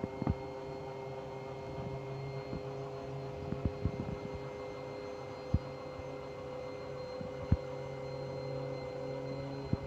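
Electric stacker's hydraulic pump motor humming steadily as its paper roll clamp attachment rotates, with a handful of sharp clicks along the way.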